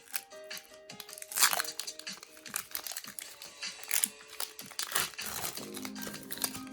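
A foil Pokémon booster pack wrapper crinkling in the hands in repeated short crackles, over background music.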